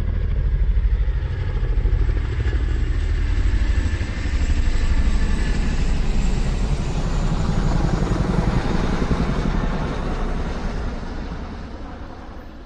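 A loud engine running with a rapid low pulse, fading away over the last few seconds.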